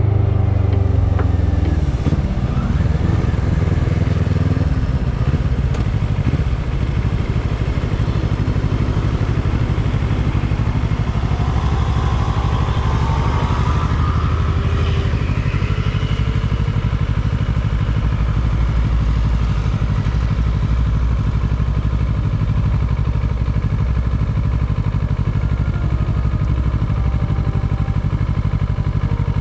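Kawasaki ER-6n's parallel-twin engine winding down over the first few seconds as the bike slows, then running steadily at low revs.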